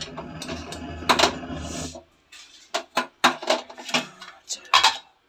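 A steady low hum that stops about two seconds in, then a run of short sharp clicks and knocks. These are typical of a handheld spark gas lighter and a gas stove knob being worked while lighting the burner.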